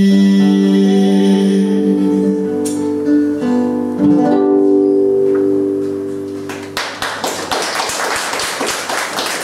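Classical guitar playing the song's closing chords, which ring out and fade. About seven seconds in, audience applause breaks out.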